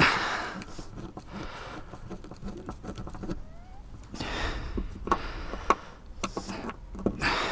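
Sparse clicks and scraping handling noise as a screw is driven to fix a plywood template to a fibreglass boat cabin side, with no power-tool whine, over a low rumble.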